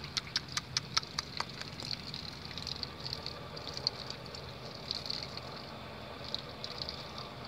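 A thin stream of water trickling from a plastic jug, splashing onto an armadillo and the dry straw beneath it. A quick run of sharp clicks comes in the first second and a half.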